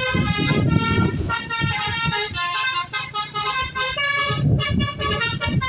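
Bus telolet horn, a Basuri V3 multi-trumpet musical air horn, playing a melody of short held notes that step up and down in pitch, with a low rumble underneath.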